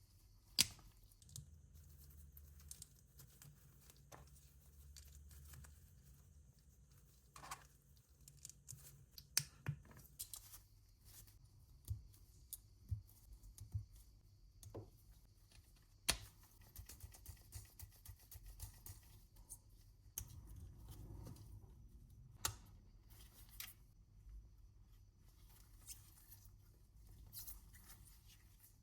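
LEGO plastic pieces being handled and pressed together: scattered sharp clicks and taps, about a dozen, with soft handling noise in between.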